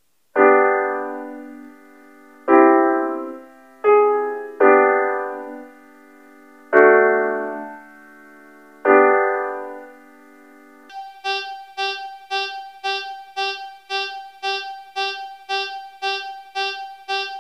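Grand-piano chords from the Caustic 3 synth app's "Panned Grand" preset: six chords struck one by one, each ringing and dying away. About eleven seconds in, an electric-guitar lead preset takes over with short plucked notes repeated evenly, about two a second.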